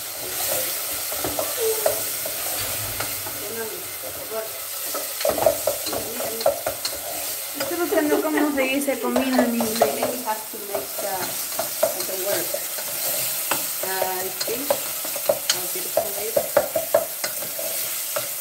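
Diced vegetables frying and sizzling in a stainless steel pot on a gas burner, stirred with a wooden spoon that taps and scrapes against the pot over and over.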